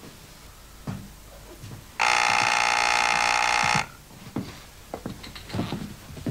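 Electric doorbell buzzer sounding once, a steady buzz that starts and stops abruptly and lasts nearly two seconds, with a few soft thuds before and after it.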